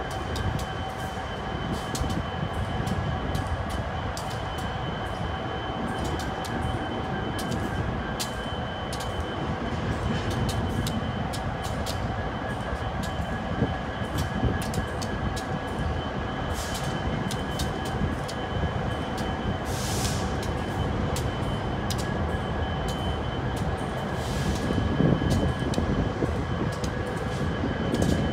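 Cars of a long Union Pacific intermodal freight train rolling slowly past: a steady rumble with frequent sharp clicks and a thin, steady high whine. It grows somewhat louder near the end.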